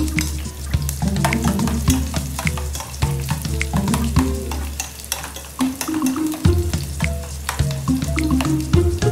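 Onions sizzling as they fry in a pot, with a metal spatula stirring them and clicking and scraping against the pot many times. Music plays underneath.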